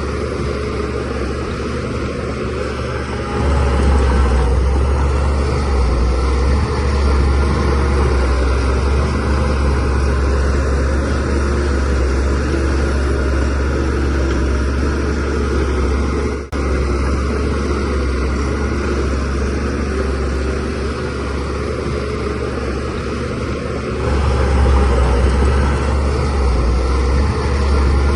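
DH17C3 bulldozer's diesel engine running steadily with a strong low hum. It grows louder about three seconds in and again near the end, as the engine takes more load.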